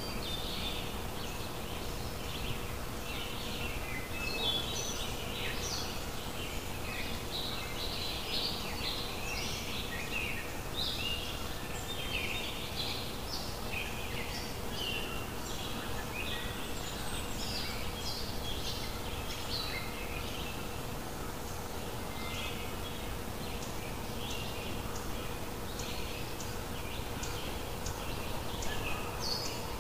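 Small birds chirping busily in many short, varied calls, over a steady background rumble and a faint steady hum.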